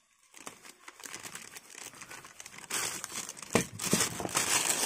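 Plastic packaging crinkling as wrapped parts are handled, faint at first and growing much louder about three seconds in.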